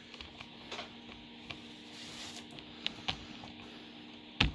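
Small plastic clicks and taps from handling a Compaq laptop seated in its SmartStation dock, with one sharp knock near the end. Under them is the steady hum of the docking station's fan.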